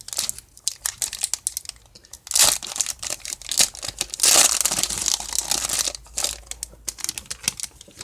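A baseball card pack wrapper crinkling as it is torn open by hand, with a short rip about two and a half seconds in and a longer, louder one about four seconds in.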